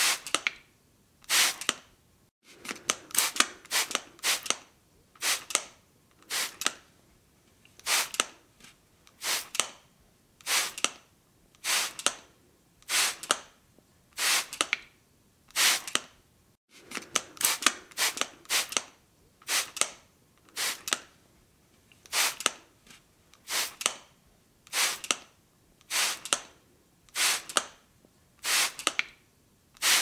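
Spray bottle spraying in short hissy bursts, about one a second, with two quicker runs of several sprays close together.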